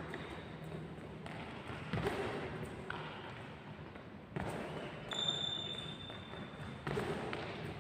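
Athletic shoes thudding and shuffling on a wooden court floor as a badminton player runs footwork drills, with heavier landings about every two and a half seconds. A brief high shoe squeak comes about five seconds in.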